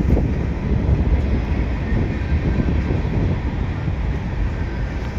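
Freight cars of a passing mixed freight train, autoracks and tank cars, rolling by on steel wheels: a steady rumble of wheels on rail with no distinct clicks.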